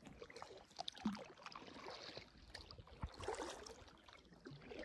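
Faint water sounds from a kayak being paddled: soft splashes of the paddle blade and water dripping and trickling off it, with small scattered drips and clicks.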